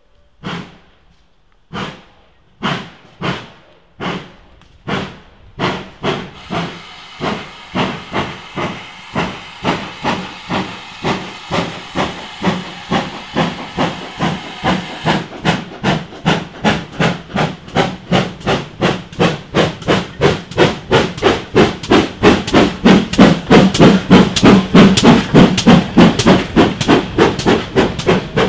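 GWR Manor-class 4-6-0 No. 7822 'Foxcote Manor' pulling away under steam. Its exhaust beats start about one a second and quicken steadily to about three a second, growing louder as it nears. A steady hiss of steam sets in about six seconds in.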